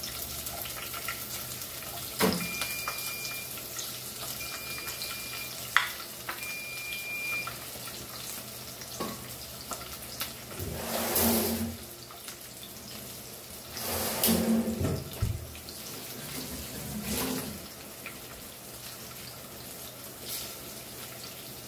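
Chopped onions sizzling in hot oil in a nonstick kadai, a steady hiss. Three short high beeps, about a second each and a couple of seconds apart, come a few seconds in, and three louder sounds of about a second each come around the middle.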